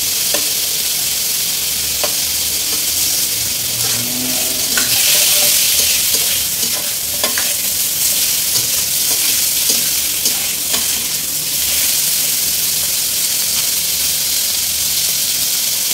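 Chicken pieces sizzling in hot oil in a stainless steel wok as a metal spatula stirs and turns them. The spatula scrapes and clinks against the wok every second or two over the steady sizzle.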